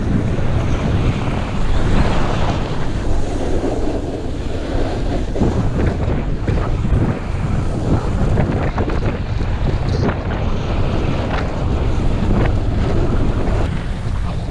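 Wind rushing over the microphone of a body-worn camera during a downhill run, mixed with the continuous hiss of sliding over packed, groomed snow and a few sharper scrapes partway through.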